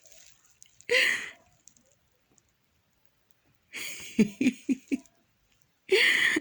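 Small dog snoring in its sleep: two loud snores, one about a second in and one near the end, with a woman's short giggle in between.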